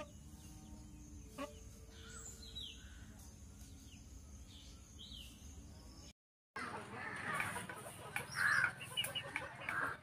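Faint, short falling chirps of small birds over quiet background noise, with a light click about a second and a half in. After a brief dropout, louder outdoor background with two harsh crow caws near the end.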